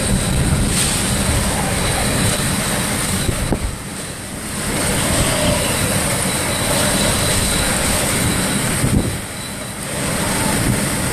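Hurricane-force wind in a major hurricane's eyewall blowing hard and continuously, a dense rushing noise buffeting the microphone. It eases briefly twice, about four seconds in and again near nine seconds, then surges back.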